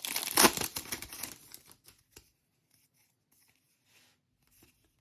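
Crinkling and tearing of a foil trading-card pack wrapper for about the first second and a half, then only a few faint clicks of cards being handled.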